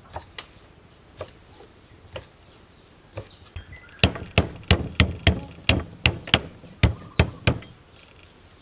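Cleaver chopping long beans on a thick wooden chopping block: a few spaced knocks, then from about four seconds in a louder, quick run of chops, about three a second.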